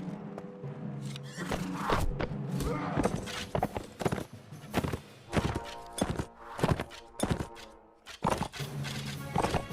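Background music with held low notes, mixed with many irregular sharp knocks.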